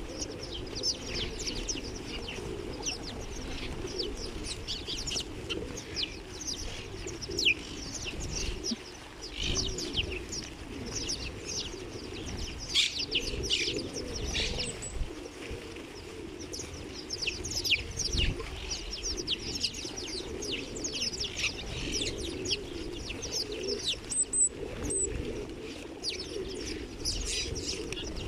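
A flock of house sparrows chirping constantly at close range, dozens of short overlapping chirps, with wings fluttering as birds land on and take off from the feeding hand.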